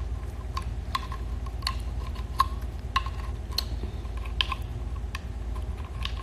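Lobster shell clicking and crackling in the fingers as the meat is picked out, a scatter of small irregular clicks over a steady low hum.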